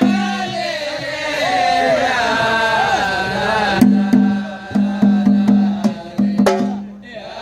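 A samri troupe singing together in a long, gliding chant; about four seconds in, hand-held frame drums come in with a run of sharp strikes under the voices.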